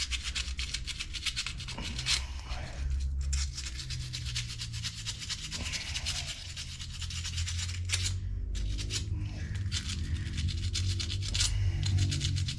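Sandpaper scrubbed rapidly back and forth over an old metal brake pad clip to clean it up, a dense scratchy rubbing. Background music plays low underneath.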